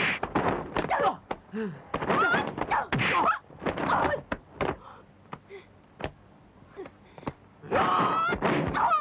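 Kung fu film fight sound effects: a rapid run of punch and kick impact hits mixed with fighters' shouts and yells. The blows thin out to a few scattered knocks in the middle, then loud shouting returns near the end.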